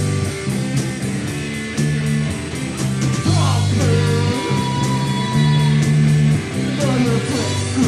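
Punk rock band playing live: electric guitar and bass chords over drums and cymbals, with a singing voice sliding in twice.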